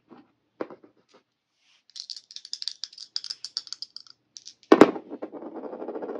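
Two dice picked up off a tabletop with a few clicks, then rattled in a cupped hand as a rapid run of small clicks for about two seconds. They are thrown a little over two-thirds of the way in: a loud clack as they land, then a clatter of them rolling on the table for about a second and a half.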